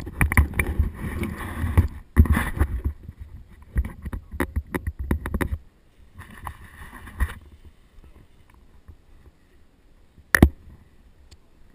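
Close handling noise from paragliding gear: irregular rustling and knocks as the harness and risers are handled against the head-mounted camera's microphone, in bursts through the first half, then one sharp click near the end.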